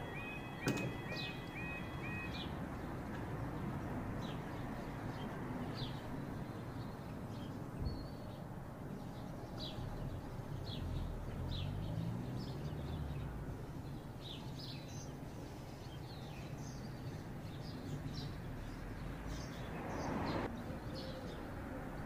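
Level crossing warning alarm sounding a repeating warbling tone for the first couple of seconds while the barriers finish lowering, then stopping. After that, birds chirp over a steady low background rumble, with a brief rush of noise about twenty seconds in.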